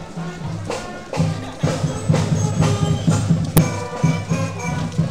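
Music with a steady beat: bass notes, percussion and a melody line.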